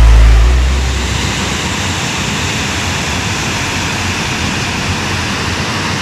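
Background music fades out within the first second, leaving the steady noise of a waterfall's falling water.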